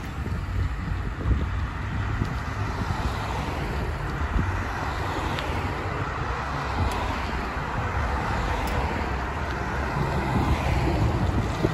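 Road traffic on a multi-lane city street, cars passing with a steady rush of tyre and engine noise that swells a little now and then. A low wind rumble on the microphone of the moving bicycle runs underneath.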